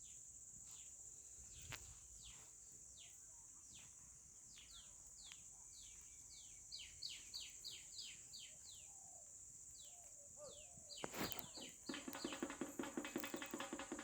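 Birds calling with short down-slurred chirps, repeated in quickening runs, over a steady high-pitched insect drone. Near the end a louder, rapid rattling call comes in.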